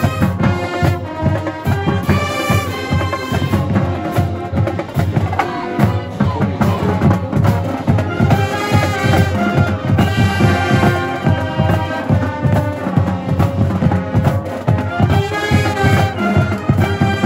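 Marching band playing a brass tune: saxophones, trumpets and sousaphones over a steady drum beat.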